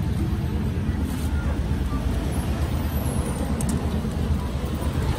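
Steady low rumble of a motor vehicle engine running.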